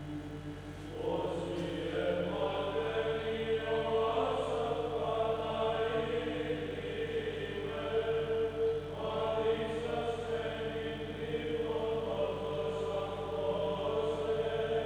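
Greek Orthodox church chanting: voices singing a slow melody over a steady held drone note.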